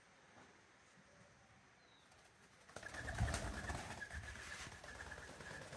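White domestic pigeon flapping its wings as it takes off from the cat's back, starting about three seconds in with a burst of low wingbeats, then lighter flutters.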